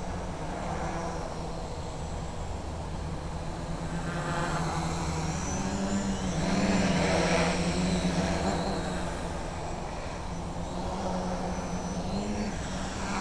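Small FPV quadcopter's motors and propellers buzzing in a low hover. The pitch wavers up and down as the throttle changes, and it is loudest about seven seconds in as the quad comes close.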